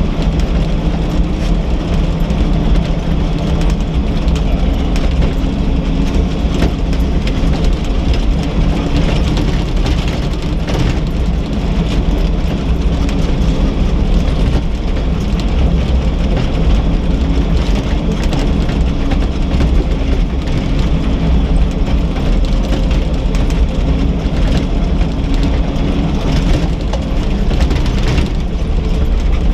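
Chevrolet K5 Blazer's engine running steadily as it drives slowly down a rough gravel trail, with frequent small rattles and knocks from the body and tyres over the stones, heard from inside the cab.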